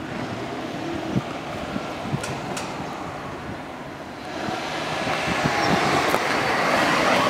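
Noise of a passing vehicle, a steady rushing sound that grows steadily louder over the last few seconds.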